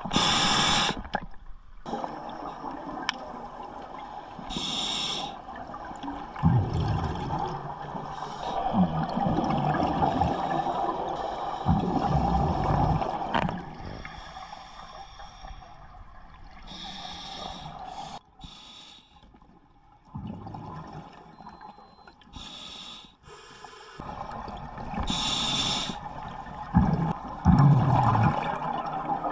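Scuba diver breathing through a regulator underwater: hissing breaths and gurgling rushes of exhaled bubbles come in cycles a few seconds apart, with a quieter lull about two-thirds of the way through.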